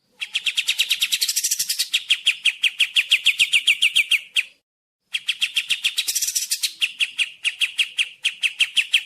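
Kapas tembak songbird singing two long, rapid rattling trills of sharp repeated notes, about six a second, each lasting around four seconds, with a brief pause between them.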